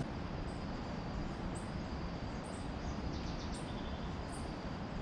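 Outdoor ambience: a steady background hiss with short, faint, high bird chirps about once a second and a thin, steady, high-pitched tone.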